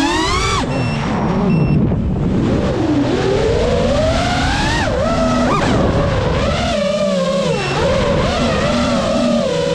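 Brushless motors and propellers of a Geprc Mark 5 five-inch FPV quadcopter whining in flight, the pitch sweeping up and down as the throttle changes, then holding steadier near the end.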